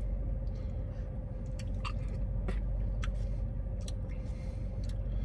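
Mouth sounds of a man eating a chocolate milkshake off a spoon: soft wet smacking with about half a dozen short, sharp lip clicks, over a steady low hum.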